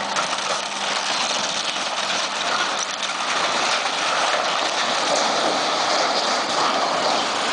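A tall timber-and-sheet-metal structure collapsing: a drawn-out rushing crash of breaking wood and metal that grows louder about halfway through as the structure comes down.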